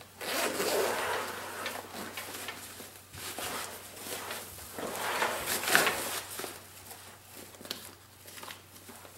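Nylon fabric and zipper of a Condor 3-day assault pack rustling and scraping as the pack is unzipped and its flaps and compartments are pulled open and handled, in several short spells, with a sharper click a little past halfway.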